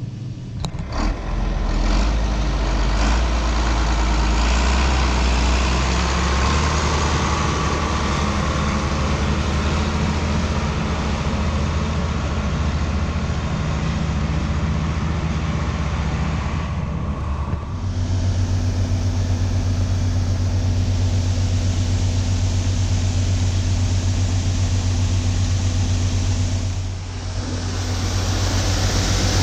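Heavy diesel farm machinery running steadily under load during corn harvest. The engine note changes abruptly about two-thirds of the way through to a steadier, even hum, and dips briefly near the end.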